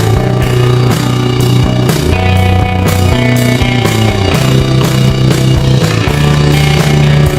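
Background music: a rock-style track with guitar, a steady beat and a moving bass line.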